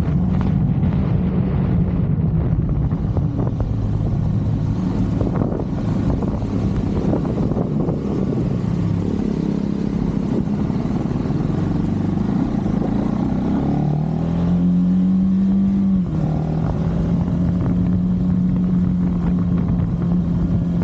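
KTM 390 motorcycle's single-cylinder engine running under way, with wind rushing past. The engine note sags about two fifths in, then climbs for a couple of seconds and drops abruptly about three quarters through, as at an upshift, before holding steady.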